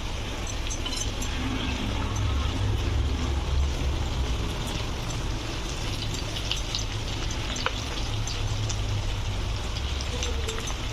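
Chicken pieces shallow-frying in hot oil in a pan: a steady sizzle with scattered sharp crackles, over a steady low hum.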